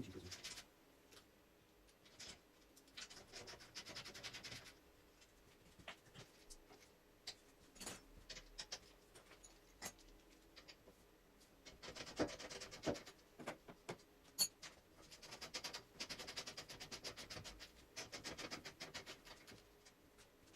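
Hand tools working bolts loose under a car: faint bursts of rapid clicking and scraping, several times over, with quiet gaps and the odd sharp tick between them.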